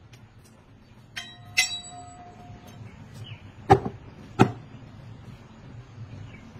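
Hand-held sticks being struck: two clinks that ring on about a second in, then two sharp knocks, the loudest, about three and a half and four and a half seconds in.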